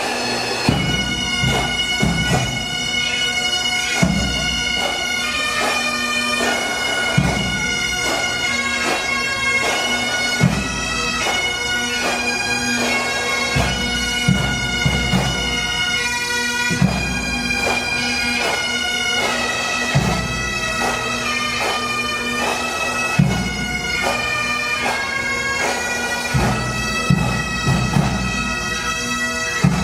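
Pipe band playing: Highland bagpipes sound a melody over a steady drone, with a drum struck about every three seconds and a few quicker clusters of beats.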